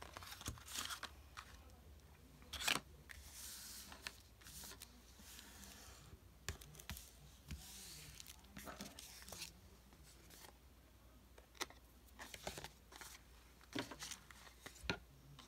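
Paper being handled by hand on a cutting mat: short rustles, slides and light taps as sheets are shifted and pressed flat, with one sharper snap of paper about two and a half seconds in.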